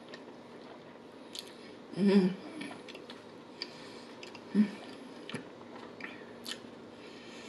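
A person chewing a mouthful of tender beef Wellington, with soft, wet mouth clicks. She twice hums a closed-mouth "mmm" of enjoyment: a longer one about two seconds in, which is the loudest sound, and a brief one past the middle.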